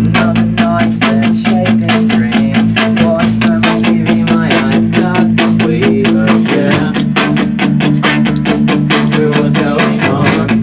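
Punk rock band playing in a rehearsal room: electric guitar chords over a fast, steady drum kit beat. The chords change about two-thirds of the way through and again near the end.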